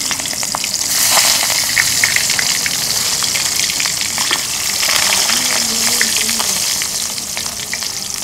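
Arum-leaf parcels of small fish shallow-frying in hot oil in a metal karahi: a steady loud sizzle with constant small crackles and spits from the oil.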